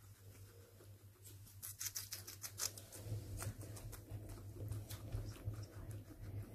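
Guinea pig chewing a crisp lettuce leaf held in the fingers: quick, irregular crunching clicks. They are sparse at first and come thickly from about a second and a half in.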